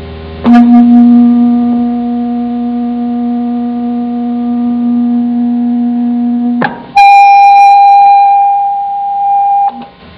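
Bare loudspeaker driven by an audio signal generator, sounding a steady tone with overtones; about six and a half seconds in the frequency is switched up with a click and a much higher steady tone plays until near the end.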